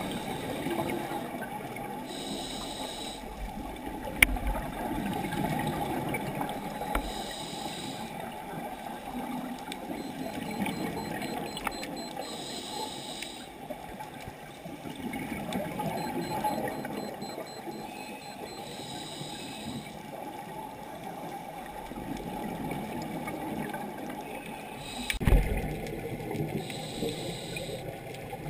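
Underwater sound from a camera in its housing: a steady low rush of water, with a diver's exhaled regulator bubbles gurgling up five times, roughly every five seconds. There is a single click early and a louder thump near the end.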